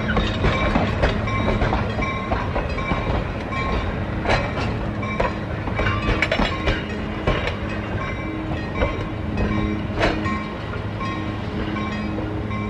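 Southern Pacific heritage passenger coaches rolling past, wheels clicking irregularly over the rails, with a steady low hum underneath.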